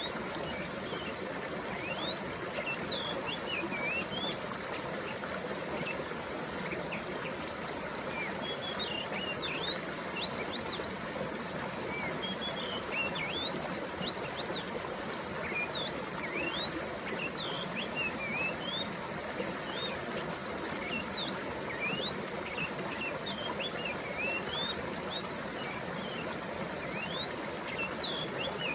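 Water flowing steadily in a stream, with many small birds chirping over it in quick short calls.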